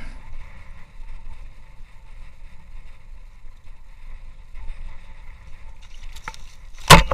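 A low steady rumble, then a few light clicks and one loud, sharp knock near the end as a silver hake is hauled up out of the ice fishing hole.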